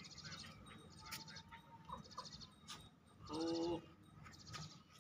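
A goat bleats once, a short pitched call about three seconds in, while a bird gives rapid high trills a few times.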